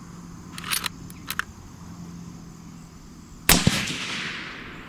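Suppressed rifle shot from a Savage Ultralite in 280 Ackley Improved fitted with a Liberty Infiniti X suppressor. It gives one sharp report about three and a half seconds in, followed by a long echo fading over about a second. Two shorter, fainter sharp sounds come about a second in.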